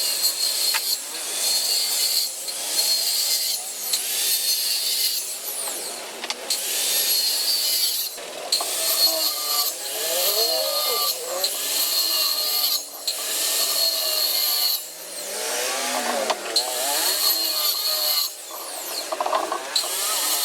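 Wood being worked with a hand tool in repeated strokes, roughly one a second, each a scraping rasp with brief pauses between them.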